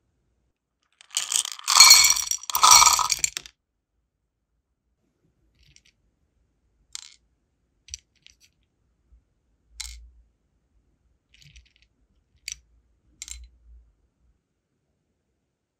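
A short clinking clatter of small hard pieces, sealing-wax beads and seals against a glass dish, in two quick bursts. This is followed by a few light, separate clicks as metal tweezers pick flower-shaped wax beads out of a ceramic bowl.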